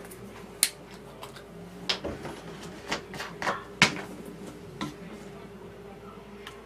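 Plastic bottles being handled: the water bottle's cap comes off and the bottles are knocked down on the table, giving about half a dozen sharp clicks and knocks over a steady low hum.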